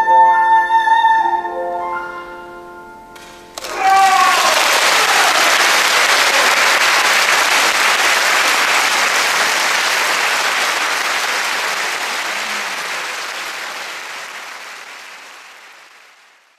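A soprano holds a final high note over piano chords, and the piano dies away. About three and a half seconds in, the audience breaks into applause with a shouted cheer at the start, and the applause slowly fades out near the end.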